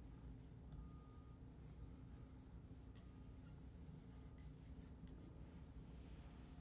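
Dry-erase marker drawing on a whiteboard: faint scratchy strokes as resistor zigzags and wire lines are drawn.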